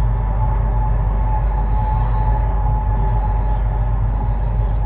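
Chinese high-speed bullet train running at speed, heard inside the passenger carriage: a steady low rumble and rush of noise with a faint steady high tone over it.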